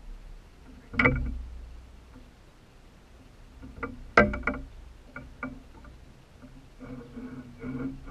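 Water lapping and slapping against a small boat's hollow hull as it is poled off a dock, with two sharp, ringing knocks, about a second in and about four seconds in, and a few smaller knocks after.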